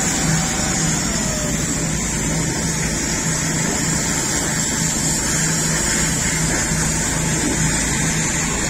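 Pressure washer running steadily: a pulsing motor-and-pump hum under a constant high hiss.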